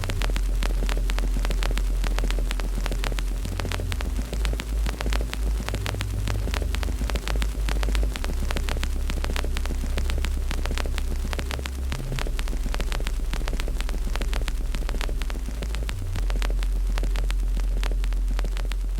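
Fireplace wood fire crackling, with many small pops and snaps, over a steady deep rumble.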